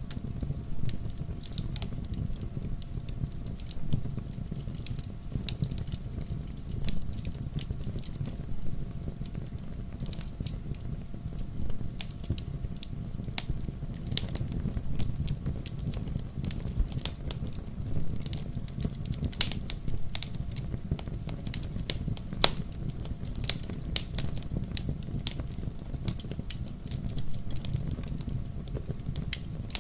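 Wood bonfire burning, with a steady low rumble of flames and frequent sharp crackles and pops at irregular moments.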